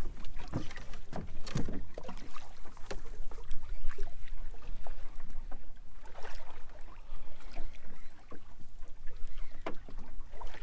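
Small fishing boat on choppy sea: water slapping and splashing against the hull with irregular knocks, over a steady low rumble.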